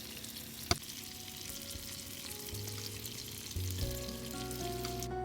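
Food sizzling in a hot pan or on a grill, with one sharp click about 0.7 s in. Background music with held notes comes in about halfway and builds toward the end.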